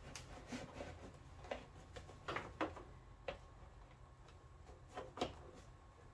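Scattered light clicks and knocks of the plastic intake snorkel being handled and fitted back into place in the engine bay, a few together about two seconds in and the sharpest just after five seconds.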